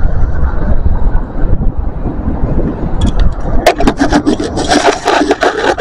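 A low rumble for the first three seconds, then dense scraping and rubbing from about three seconds in as the camera is handled and swung round.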